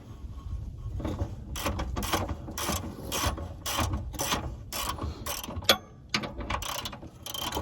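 Hand ratchet clicking in repeated short strokes, about two a second, as a subframe bolt on a Hyundai Genesis Coupe is backed out.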